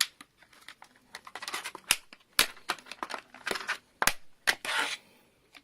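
Plastic packaging of a new laptop RAM module being opened by hand: a run of crinkles with sharp clicks and snaps.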